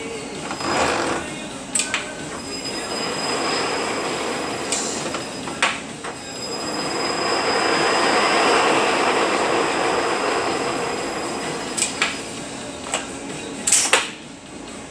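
Rebuilt Eaton Fuller RTLO-18918B 18-speed truck transmission running on a test dyno: a steady mechanical whir with a high whine, swelling to its loudest about halfway through and easing off again. Several sharp clicks sound over it.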